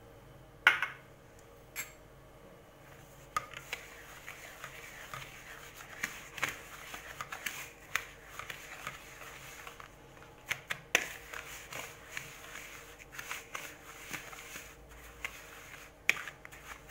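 Wire whisk stirring dry semolina moistened with oil in a bowl: repeated scratchy strokes, with the wires clicking against the bowl now and then. A sharp knock comes just under a second in, before the stirring starts.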